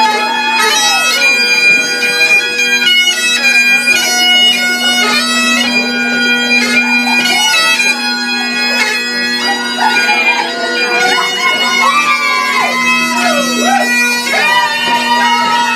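Highland bagpipes playing a dance tune: the drones hold one steady low note under the chanter's melody.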